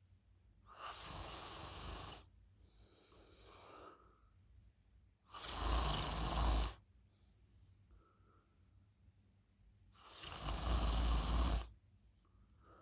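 A person snoring loudly: three loud snores about four to five seconds apart, the second and third with a deep rumble, and a softer breath after the first.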